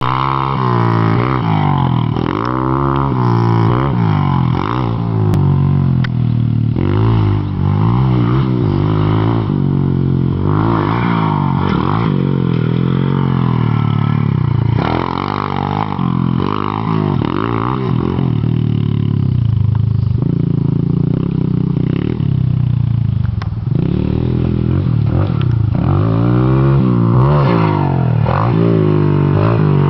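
Small pit bike engine revving up and down over and over as the rider opens and shuts the throttle riding a dirt track, with a few shorter dips in pitch as it goes over the jumps.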